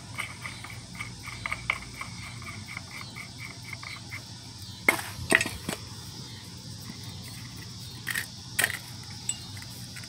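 Metal parts clinking and a few sharp knocks as a new front wheel hub bearing assembly and its axle shaft are handled and fitted into a Ford Escape's steering knuckle; the loudest knocks come about halfway through and again near the end.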